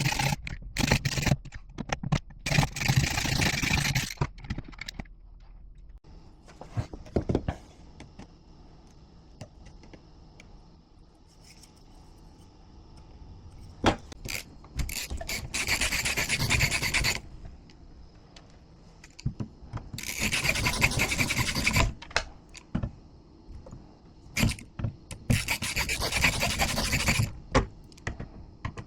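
Scraping and rubbing noise in bursts of a few seconds each, with a few clicks and knocks in the quieter stretches between.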